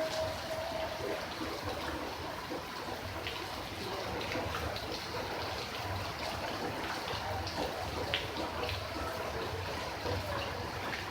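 Steady rain falling, an even hiss of water with scattered sharper drops ticking close by.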